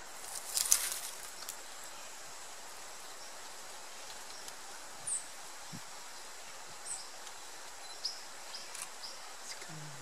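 Outdoor natural ambience: a steady hiss with a faint, steady high tone and a few short, high chirps spread through the second half. A brief noisy rustle about half a second in is the loudest sound.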